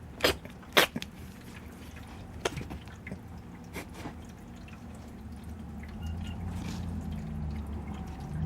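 A few sharp, light clicks or taps, the loudest in the first second, then a low steady hum coming in about six seconds in.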